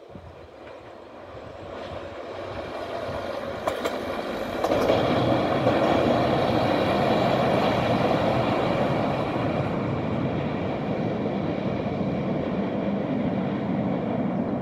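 Fiat M4 diesel railcar approaching and passing, its engine and wheels growing steadily louder over the first five seconds, then a steady rumble as it goes by. A few sharp clicks about four seconds in.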